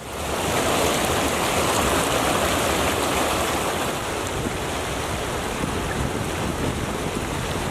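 Steady rush of flowing water, a little louder in the first few seconds.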